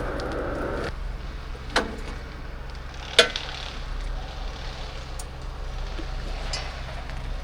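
Steady low drone of a road grader with a brush mower working the roadside ditches in the distance. A louder, noisier sound cuts off about a second in, and two sharp knocks follow.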